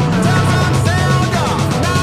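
Rock-style background music with guitar.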